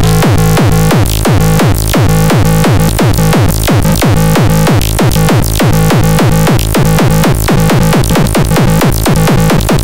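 GROOVEBOX X33 playing an electronic techno pattern: a fast, even run of short hits that fall in pitch, about four a second, over a held bass.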